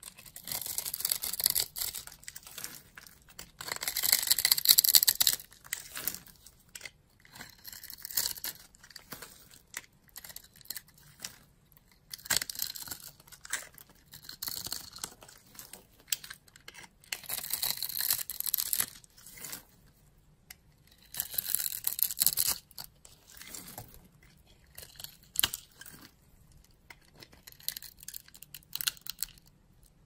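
Utility knife blade slicing through a bar of soap scored into a grid, the small cubes crunching and crumbling off in a series of crisp scraping strokes. Each stroke lasts a second or two, and the loudest comes about four seconds in.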